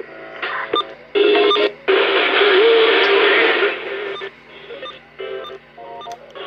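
Music from a radio or TV broadcast, in a run of short phrases with brief gaps, the longest and loudest stretch coming about two seconds in.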